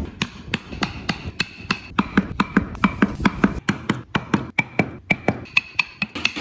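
Mallet striking a carving chisel into wood, a quick regular series of sharp taps, about three to four a second.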